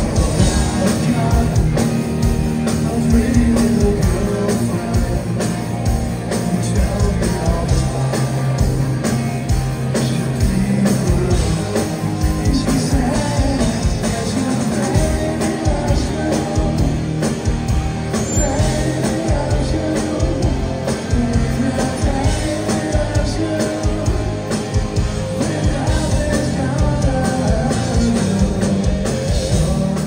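Live rock band playing a song, with a male lead vocal over electric guitar, bass guitar and a drum kit, loud throughout.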